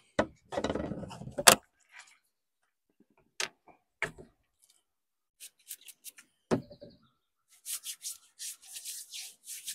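Rustling and a few sharp clicks and knocks of small objects being handled, then a quick run of short hissing or rubbing strokes near the end, about four a second.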